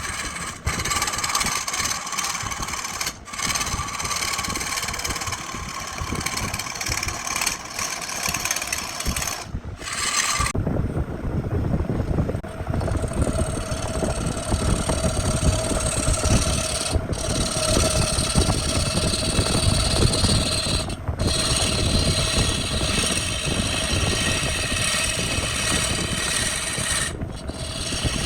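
Wood lathe running while a turning tool rubs and scrapes against the spinning wood-and-epoxy blank, the noise changing abruptly several times where short clips are cut together.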